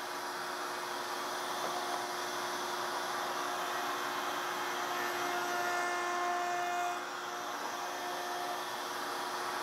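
Table-mounted router spinning a chamfer bit, with dust extraction drawing through the fence hose: a steady whir with a constant tone. It grows slightly louder from about a second and a half in until about seven seconds, while the bit chamfers the edge of an oak mallet head, then settles back.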